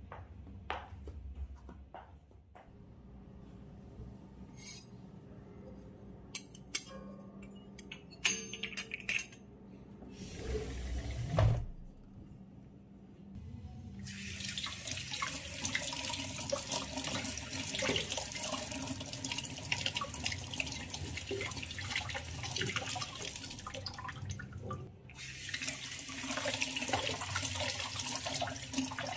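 Scattered light clicks and knocks, the loudest a sharp click about eight seconds in. Then a kitchen tap is turned on about halfway through and runs into a stainless steel colander of fruit while the fruit is rubbed and rinsed under the stream. The flow breaks off briefly near the end and comes back.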